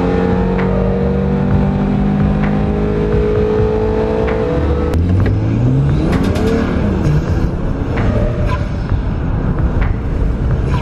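Six-cylinder car engine under hard acceleration: the revs hold and climb for about five seconds, break off sharply with a few clicks at a gear change, then climb again.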